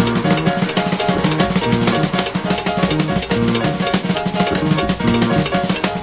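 Jazz-fusion background music with drums and melodic instruments, over a steady high-pitched insect chorus.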